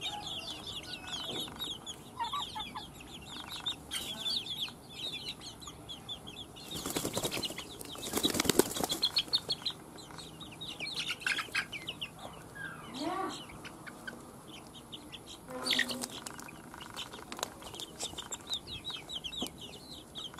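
Flock of young free-range village chickens cheeping continually with many short, high peeps. A burst of wing-flapping comes about seven seconds in, and another, shorter one near sixteen seconds.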